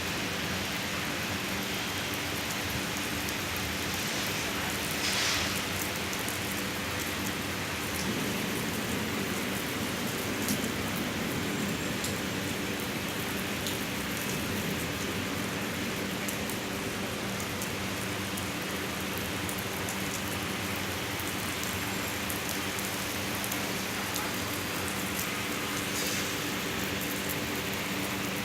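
Steady rain falling and pattering on surfaces, with a low steady hum underneath.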